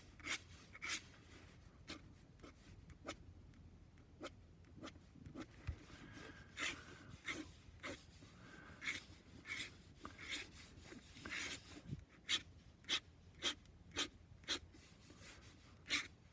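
Flexible nib of a Waterman 52 fountain pen scratching across paper in short, quick strokes. Near the end comes a run of sharp strokes about half a second apart.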